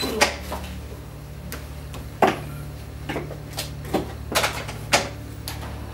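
A series of irregular sharp clicks and taps, several strokes spaced unevenly, over a steady low hum.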